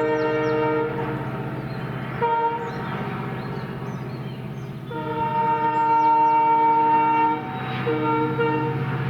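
EMD WDG4 (GT46MACe) diesel locomotive's multi-tone air horn sounding a series of blasts: one ending about a second in, a short toot a couple of seconds in, a long blast from about five to seven seconds, then quick toots near the end. Underneath, the locomotive's 16-cylinder two-stroke diesel runs with a steady low drone as the train accelerates.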